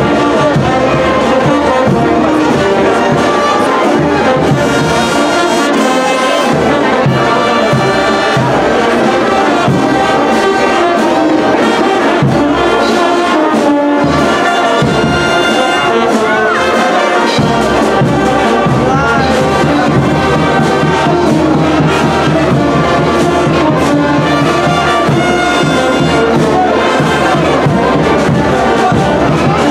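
A brass band playing, with trumpets and trombones carrying the melody.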